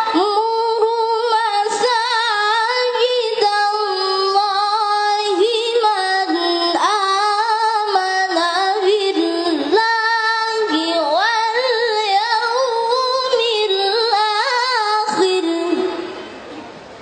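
A high young voice reciting the Quran in the melodic tilawah style, alone with no accompaniment: long held phrases with ornamented rising and falling turns. The voice stops about fifteen seconds in.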